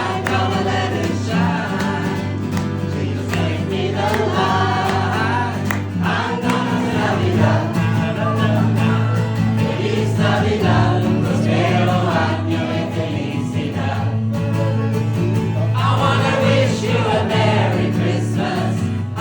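A group of voices singing a Christmas song together, accompanied by an instrument holding steady low notes.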